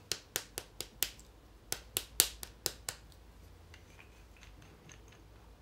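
A small bottle of Semilac gel polish shaken by hand, giving a run of sharp clicks, about four a second in two short bursts, that stop about three seconds in. Fainter small ticks follow as the bottle is handled.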